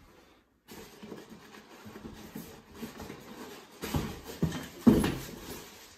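Plastic packaging rustling and crinkling as parts are pulled from a cardboard shipping box, with a few dull knocks of things being handled, the loudest about five seconds in.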